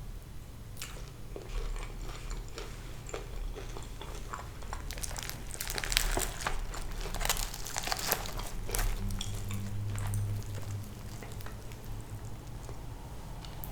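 Close-up eating sounds of crispy fried sea bass being bitten and chewed, with wet mouth clicks and crackly crunches. The crunching is heaviest in the middle.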